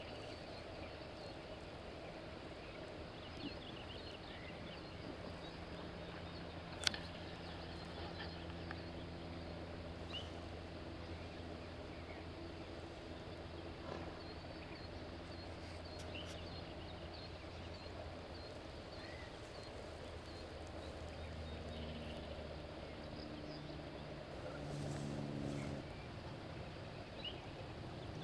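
Quiet outdoor ambience: scattered faint chirps over a steady low hum, which swells briefly a few seconds before the end, with one sharp click about seven seconds in.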